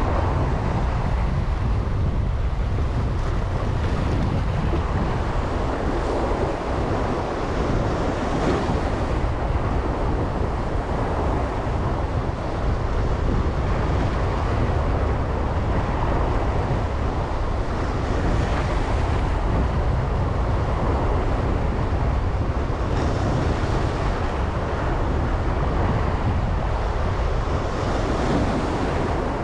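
Wind buffeting the microphone over the steady wash of surf, with the hiss of the water swelling a few times as waves come in.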